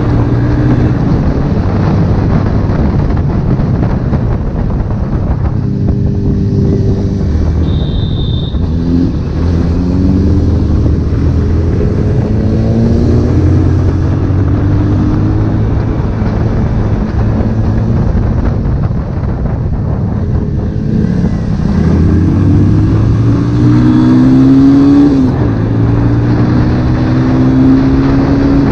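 Honda CB1000R's inline-four engine running under way, its pitch rising repeatedly as it revs up and dropping back at each gear change.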